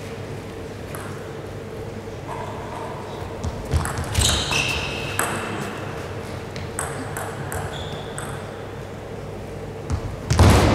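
Table tennis ball bouncing with several short, ringing pings between about 4 and 8 seconds in, as the server readies the ball. Just before the end comes a louder hit as the serve is struck.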